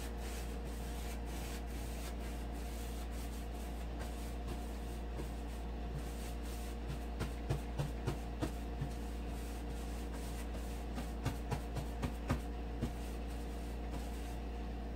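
Paintbrush brushing and dabbing paint onto textured drywall to blend a repair into the surrounding wall, with clusters of short taps and scrapes about halfway through and again near the end. A steady low hum runs underneath.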